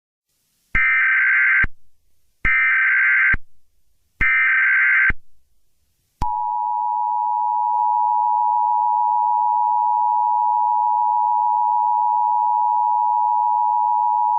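Emergency Alert System signal: three short bursts of warbling SAME header data, each under a second, then the steady two-tone attention signal, held for about eight seconds before cutting off suddenly.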